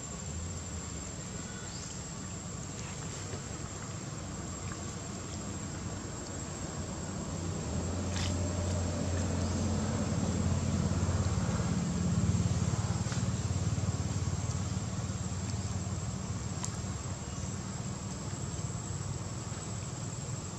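Low rumble of a motor vehicle engine that swells around the middle and then eases, over a steady high-pitched whine, with a few faint clicks.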